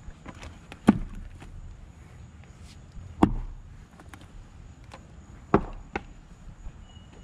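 Splitting axe chopping maple rounds for firewood: three heavy strikes a little over two seconds apart, then a lighter knock soon after the third.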